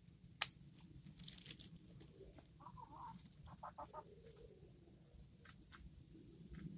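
Faint, soft clucking of chickens with scattered small clicks, a sharper click about half a second in.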